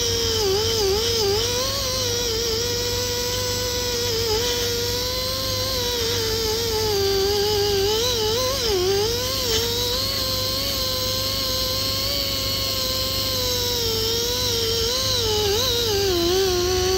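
Small high-speed handheld rotary tool whining as it spins a wire wheel brush against the cast-iron gear wheel of a Millers Falls hand drill, scrubbing off old paint and rust. The whine dips in pitch again and again as the part is pressed into the brush, then climbs back.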